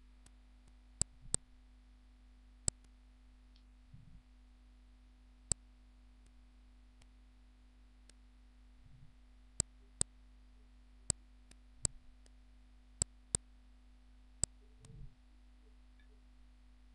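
Computer mouse clicks, about a dozen sharp single clicks spread out, several in quick pairs, over a steady low electrical hum.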